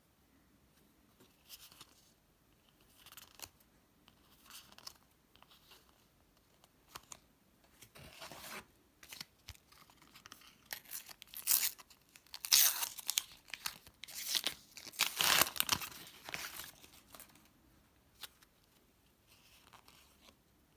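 Paper sticker packet torn open and its wrapper crinkled, a dense run of loud rips and crackles in the middle, with soft rustles of stickers being handled before and after.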